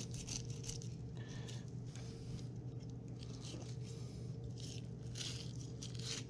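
Knife blade crunching and scraping through the flesh, scales and backbone of a freshwater drum being filleted, in short irregular strokes, over a steady low hum.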